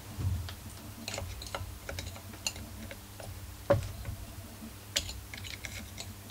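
Scattered light clicks and taps of small metal and plastic engine parts and tools being handled on a workbench, with two sharper knocks, one just past the middle and another about a second later.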